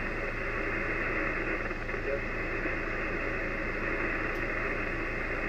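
Steady hiss of 80 m band static from an Icom IC-756PRO receiver tuned to 3.8625 MHz single sideband, with a low steady hum under it.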